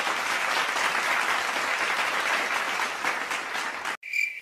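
Applause sound effect: a crowd clapping densely and evenly, cut off abruptly about four seconds in. A cricket-chirp sound effect takes over, a high chirp pulsing about twice a second, the comic 'crickets' of an awkward silence.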